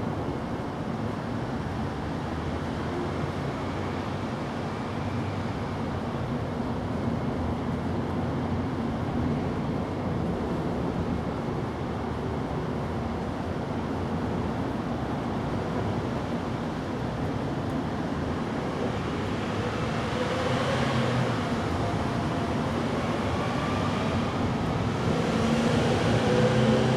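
Steady low rumble of distant road traffic, growing louder near the end with a rising engine note as a vehicle passes.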